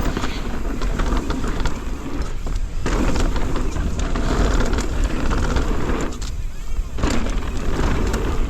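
2024 Transition Sentinel mountain bike descending a wet dirt trail at speed: knobby tyres rolling and rattling over dirt and roots, with chain and frame clatter and wind rumbling on the helmet camera. Twice the tyre noise drops out for under a second.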